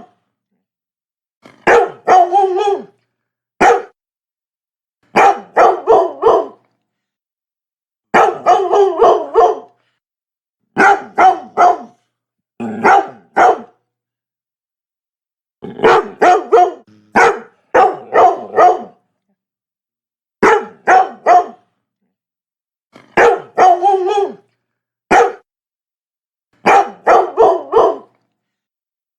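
Labrador retriever barking in quick runs of two to five sharp barks, with silent gaps of a second or two between the runs.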